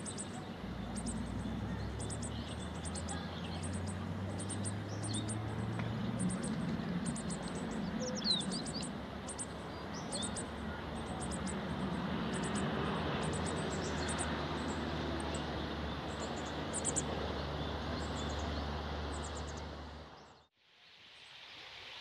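Meadow buntings calling: a long run of short, very high-pitched calls repeated many times, with a few quick falling notes among them, over a low steady hum. The sound fades out near the end.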